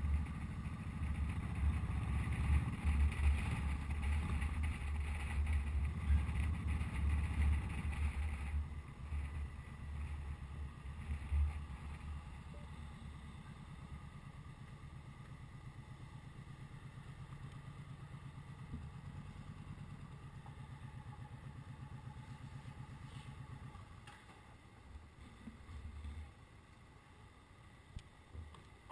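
Motorcycle engine running at low speed, a low rumble heard from on the bike: louder for the first eight seconds or so, then settling to a quieter, steadier run as the bike slows, and dropping lower again near the end.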